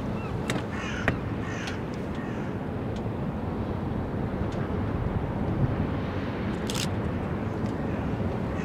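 Gulls calling a few times: short wavering calls near the start and a sharper one near the end, over a steady low rumble.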